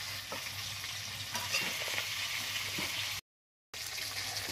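River fish pieces sizzling in hot oil in a metal wok (karai), with a few faint clicks of a spatula as the fried pieces are lifted out. The sound drops out completely for about half a second a little after three seconds in.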